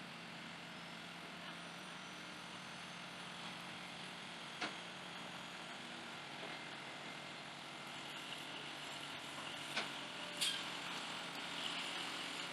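Faint, steady vehicle noise over outdoor background hiss, with a few light clicks partway through.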